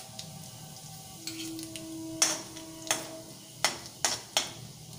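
Whole cumin seeds dropped into hot mustard oil with dried red chillies in an aluminium kadai, sizzling with about five sharp pops in the second half: the tempering (phoron) frying.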